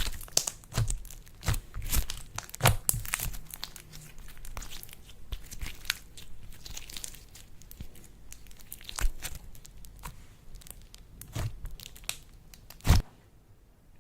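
Slime being squeezed and stretched by hand, with irregular crackling and popping. A louder pop comes near the end, then it goes quiet.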